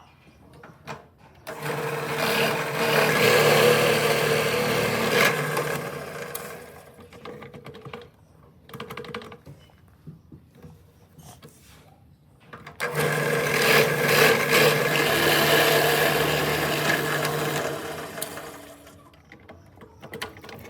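An electric power tool motor runs twice, each time for about five seconds, with a steady hum under a hiss. Short knocks and clicks fall in the pauses between the runs.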